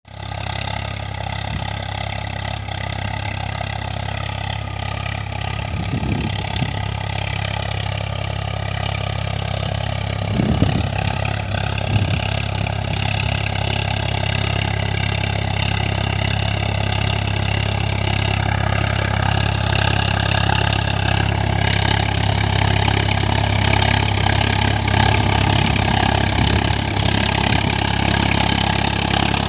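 Swaraj 855 FE tractor's three-cylinder diesel engine running steadily under load, pulling a rotavator through the soil, and growing slowly louder as the tractor comes closer.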